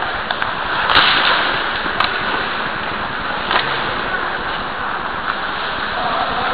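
Steady noisy rush of an ice hockey game picked up by a camera taped to a goalie's helmet, with a few sharp knocks about one, two and three and a half seconds in.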